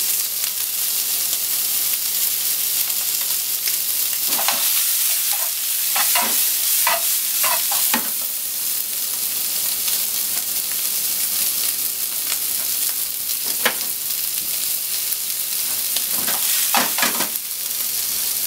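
Cubes of pork belly sizzling steadily in hot fat in a nonstick frying pan. Short clusters of light taps and scrapes come as the pieces are turned over, a few seconds in, once in the middle, and near the end.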